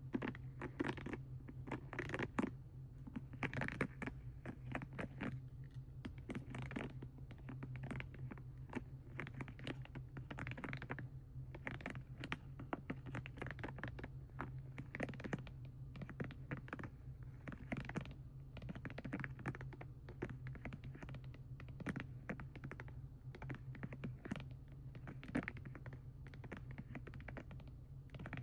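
Fingernails tapping and scratching quickly and irregularly on the plastic of a paint set, several sharp clicks a second, over a steady low hum.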